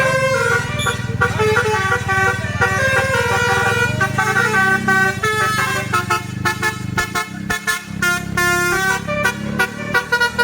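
Telolet basuri multi-tone bus horn playing a fast melody of quickly changing notes, several tones at once, over the low running of the bus's engine.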